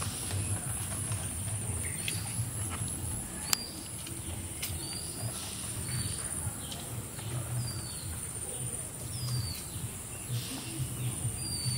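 Outdoor field ambience: a bird giving short high chirps every second or two over a steady high insect drone, with a low rumble underneath. Brief rustles come through, and there is a single sharp click about three and a half seconds in.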